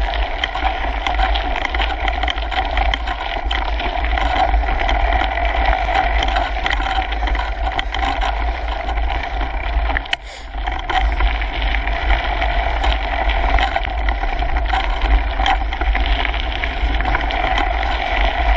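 Kona Coiler mountain bike riding along a gravel woodland trail, heard through a handlebar-mounted GoPro Hero 3: continuous tyre noise on the gravel with many small rattles and knocks from the bike and camera mount over the rough ground. The noise dips briefly about ten seconds in.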